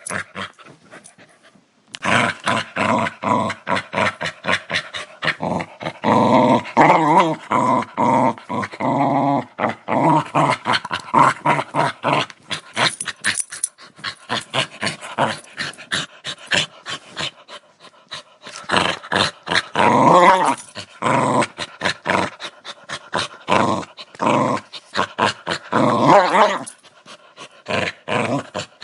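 Dog growling aggressively in rough, rapidly pulsing bursts, with a brief pause about a second or two in and the loudest stretches midway and toward the end.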